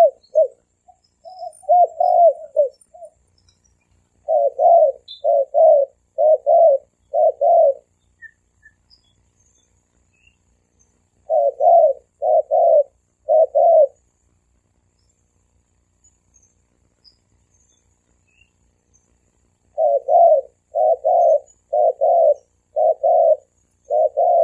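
Spotted dove cooing in repeated phrases of four to six short notes, with pauses of a few seconds between phrases. This is a 'thổ kim' style call used as a lure to stir up wild doves.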